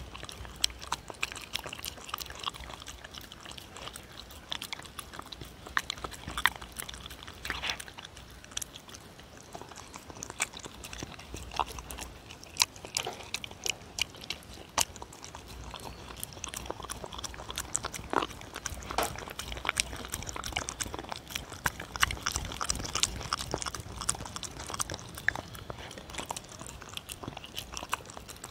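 Dog eating ground turkey close to the microphone: irregular chewing, smacking and mouth clicks.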